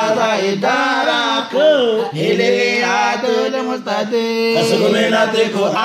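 Unaccompanied men's voices singing a devotional chant in praise of the Prophet, with long held, wavering notes and a short break about two seconds in.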